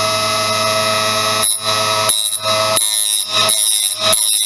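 Small bench sharpening machine running with a steady high whine as its wheel grinds the hard-alloy teeth of a wood-cutting angle grinder disc. From about a second and a half in, the sound breaks off briefly several times as the disc is moved from tooth to tooth.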